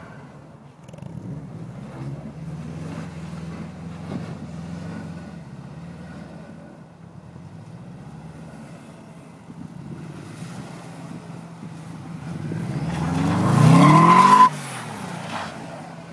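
Subaru engine running at low revs, then revving up in a long rising climb that peaks near the end and cuts off suddenly as the throttle is released, as the car spins doughnuts.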